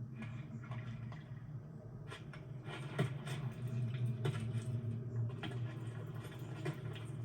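Animated-film sound effects: a steady low hum under many small scattered clicks and patters, with a sharper click about three seconds in.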